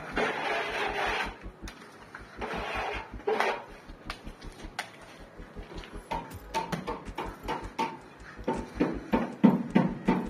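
Metal straightedge scraping across wet gypsum plaster on a wall. It is followed by many short rubbing and patting strokes, thickest near the end, as the plaster is pressed flat by hand.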